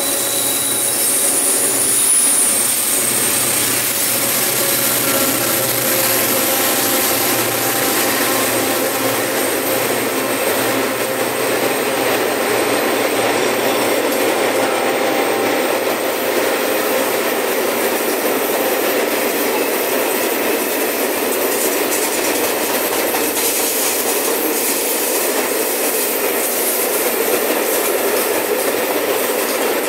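Renfe class 333 diesel locomotives, three in multiple, pulling away under load with a loaded grain train. A high whine from the engines is heard in the first few seconds, then the grain hopper wagons roll steadily past on the rails.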